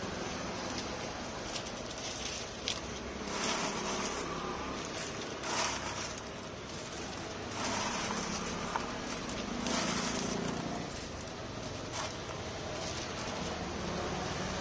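A clear plastic bag crinkling and crisp fried onion vadagam rings rustling as they are scooped by hand into the bag, in several short bursts with a few sharp clicks, over a steady background hum.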